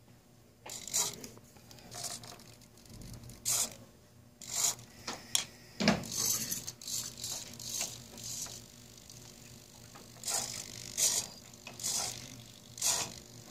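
Micro servo motors in a 3D-printed robot hand whirring in repeated short bursts as the fingers curl and tilt, with a dull knock about six seconds in.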